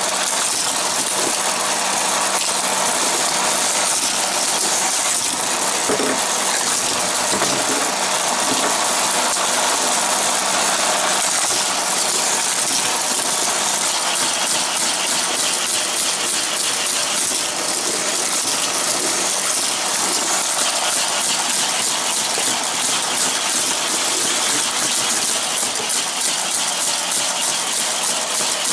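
Motorized boosters of a Hot Wheels Mega Loop Mayhem track set running, a steady whirring noise with fast fine ticking.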